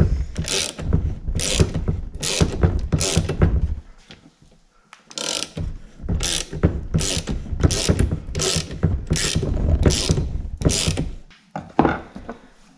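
Ratchet handle clicking in repeated strokes, about two a second, as it winds in the forcing screw of a three-jaw pulley puller. The puller is drawing the ignition housing off a Solex 1400 moped engine's crankshaft. The strokes pause about four seconds in, resume, and stop near the end.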